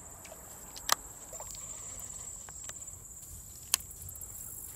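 Insects droning steadily at a high pitch in summer woodland. Two sharp clicks stand out, one about a second in and one near the end.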